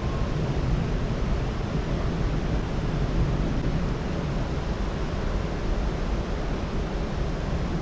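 Steady rushing of water, foaming as it flows into the channel, which the hikers think could be a SEPA aeration cascade.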